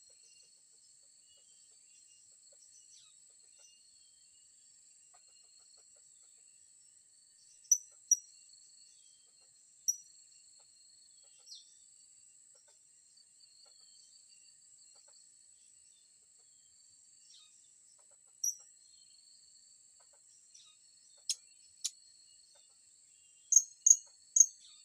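Short, sharp, high-pitched calls of blue-crowned hanging parrots (serindit), scattered singly and in pairs, with three in quick succession near the end. Under them runs a steady high insect buzz and a pulsing, cricket-like trill.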